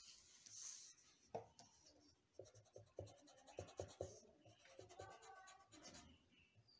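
Faint pencil scratching on paper in a run of quick, short strokes, with a light knock about a second and a half in.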